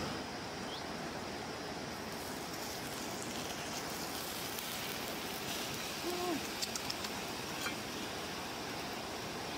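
Steady outdoor background hiss with a few faint crackles from the wood fire grilling the fish, and one brief low-pitched call about six seconds in.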